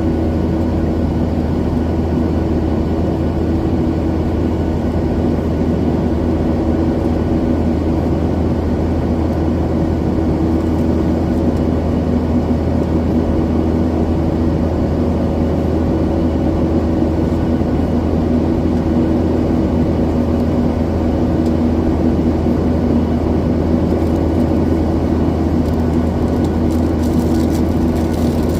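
Steady jet-engine drone and air noise heard inside the cabin of a Boeing 737-900ER, with its CFM56-7B turbofans running. Even, loud rumble with a few steady hums above it and a light rattle near the end.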